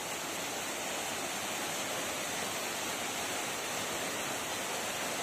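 Waterfall pouring onto rock and into a pool: a steady, even rush of falling water.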